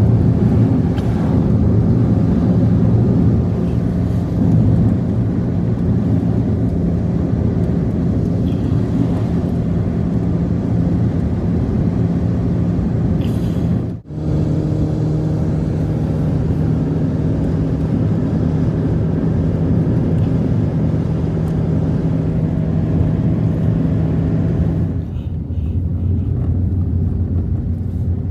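A motor vehicle's engine running steadily, with a low droning hum; the sound cuts off abruptly about halfway and resumes, and near the end the hum drops lower.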